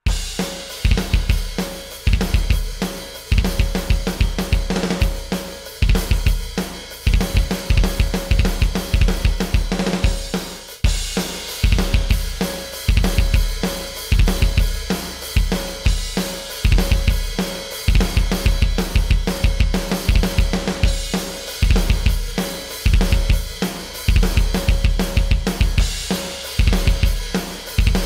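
Electronic drum kit played as a steady groove of kick, snare, hi-hat and cymbals, heard through the drum software with compression applied to the kit sound. The cymbals brighten from about eleven seconds in.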